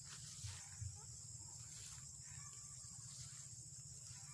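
Steady, faint high-pitched insect chorus over a low rumble, with a couple of soft thumps in the first second.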